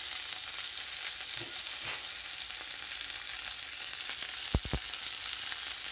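Flour-coated Atlantic cod fillet frying in hot oil, a steady high sizzle. Two short, soft knocks come close together about three-quarters of the way through.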